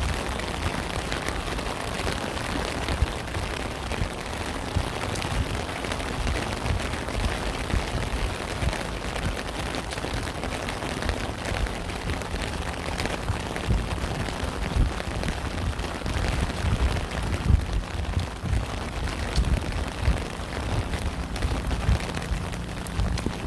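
Steady heavy rain: a dense patter of drops over a deep, uneven low rumble.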